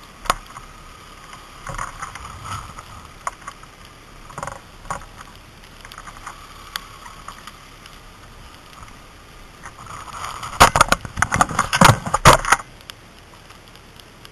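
Crunching of ice-crusted snow and scattered clicks and knocks right at a helmet-mounted camera, then, about ten seconds in, a dense burst of loud crunching and scraping against the microphone for about two seconds.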